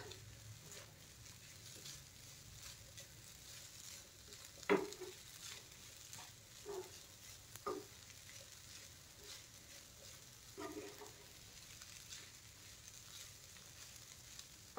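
Wooden spatula stirring and turning poha with vegetables in a granite-coated frying pan, with a faint sizzle and a few knocks of the spatula against the pan, the loudest about five seconds in.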